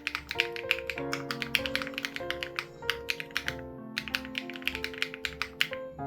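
Rapid typing on an SPM AL87B mechanical keyboard with BSUN Raw switches and its dampening foam removed: a dense run of crisp key clicks with a brief pause a little past the middle. Underneath is background music with sustained chords and a soft low beat.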